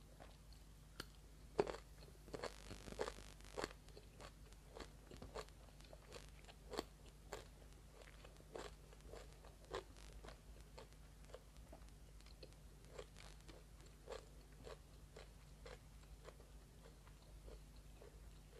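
Crunchy bite into a raw small round purple eggplant about a second and a half in, followed by crisp crunching chews that come thickest over the next couple of seconds, then thin out to scattered crunches.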